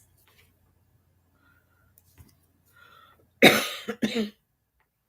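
A woman coughing twice in quick succession, about three and a half seconds in.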